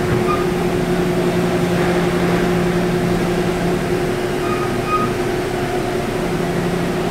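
Seoul Subway Line 5 car heard from inside as it runs into the station: a steady rumble and hiss with a constant motor hum. A lower hum drops away about halfway through and comes back near the end.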